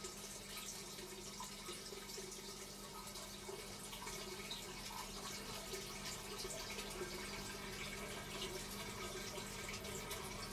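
Water trickling steadily through the PVC pipes of a hydroponic growing system, over a steady low hum.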